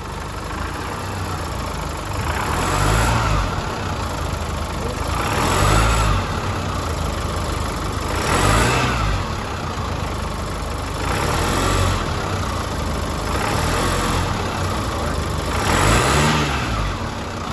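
2016 Chevrolet S10's 2.8 four-cylinder turbodiesel revved in about five throttle blips, each rising and falling back to idle. Under acceleration it carries a sewing-machine-like clatter, the sign of a failing high-pressure fuel pump.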